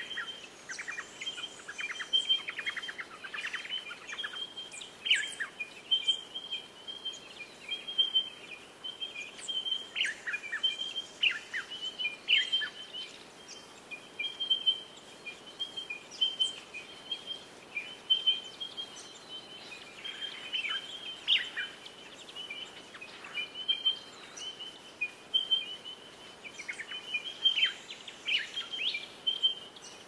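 Australian bush birds calling. A steady run of short, high chirps at one pitch goes on throughout, and over it other birds give quick downward-slurred calls and rapid rattling trills that come and go.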